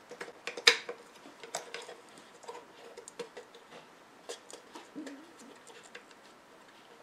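Small clicks, taps and scrapes of AA batteries being pushed and worked into the meter's battery holder, with one sharp click just under a second in. The batteries don't fit the contacts well.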